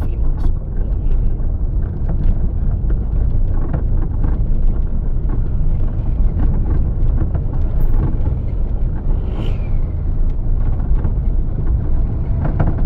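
Inside a moving car's cabin: a steady low rumble of engine and road noise, with small scattered clicks and knocks.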